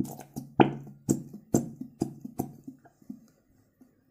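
Fevicol white PVA glue squeezed from a squeeze bottle into a glass bowl, sputtering and squelching out of the nozzle in a quick, uneven string of sharp pops over a low steady buzz.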